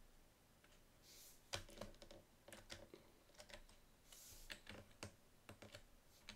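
Faint computer keyboard keystrokes: scattered clicks in short runs as a command line is typed, deleted back and edited.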